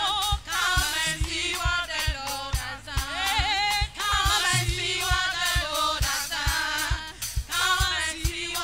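Live gospel worship music: several women's voices singing in harmony into microphones over a steady drum beat.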